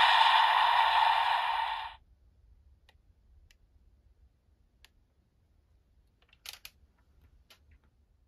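Electronic voice and music from a Kamen Rider Revice transformation toy's speaker, the driver with the Holy Wing Vistamp, cutting off sharply about two seconds in. Faint plastic clicks from handling the toy follow, with a short cluster of louder clicks near the end.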